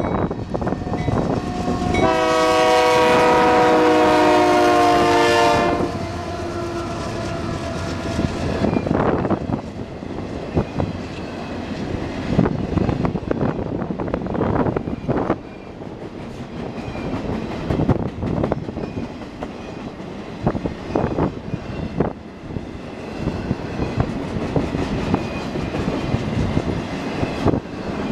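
Union Pacific diesel freight locomotive's air horn sounds one long blast about two seconds in. After it, the train of flatcars loaded with wind turbine blades rolls past, its wheels clicking and clattering over the rails with a steady rumble.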